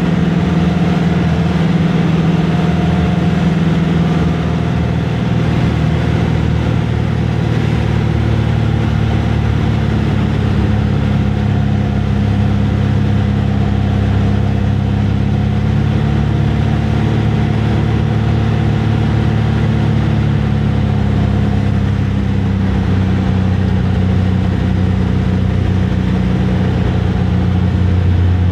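Propeller airplane engine running, heard from inside the cockpit as a loud, steady drone; the note shifts slightly about five seconds in.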